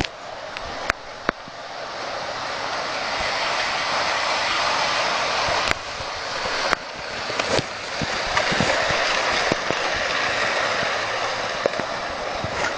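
H0-scale model train running past on sectional track laid on a floor. Its wheels and motor make a steady rattling whir that swells about two seconds in, with a few sharp clicks.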